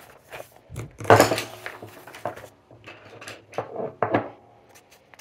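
Glossy magazine pages being flipped and turned by hand: a run of irregular papery rustles and flaps, the loudest about a second in.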